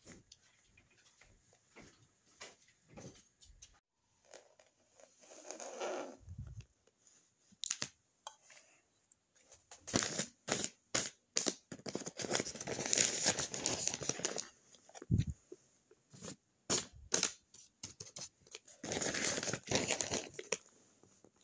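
Handmade paper blind bag crinkling and rustling under handling, in irregular bursts with longer stretches, scattered clicks and a couple of dull thumps.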